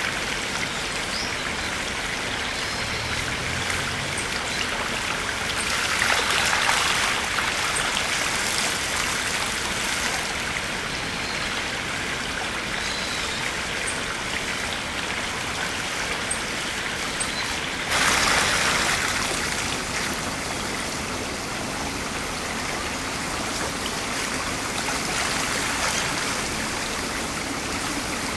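Shallow spring-fed river running over a stony bed, with water spilling over the rim of a round spring well: a steady rush of water that swells briefly about six seconds in and again, more suddenly, a little past the middle.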